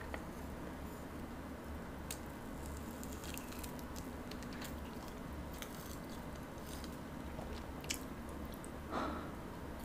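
Faint chewing of jjajangmyeon noodles, eaten as quietly as possible, with a few soft clicks and a short soft noise near the end over a low steady hum.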